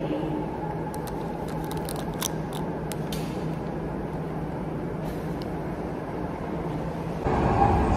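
Plastic snack-bar wrapper crinkling in the hands for a couple of seconds, in crisp crackles over the steady hum of a subway station. Near the end a louder rumble from an arriving subway train sets in.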